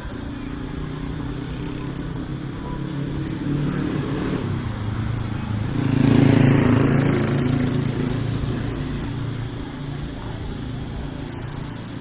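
A motor vehicle's engine running as it drives past on the street, growing louder to a peak about six seconds in and then fading away.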